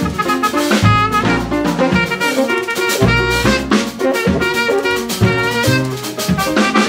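Recorded jazz played by a quartet of saxophone, piano, bass and drum kit.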